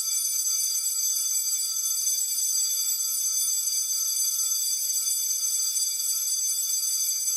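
Logo-intro sound effect: several steady high-pitched tones layered over a hiss, held at one unchanging pitch, sounding like an alarm.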